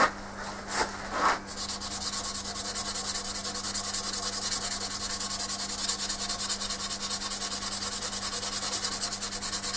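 A wooden bowl being hand-sanded as it spins on a lathe, to take out scratch marks before recolouring. A few knocks come first; then, about a second and a half in, a rapid, even pulsing hiss of abrasive on wood starts and runs on over a steady low machine hum.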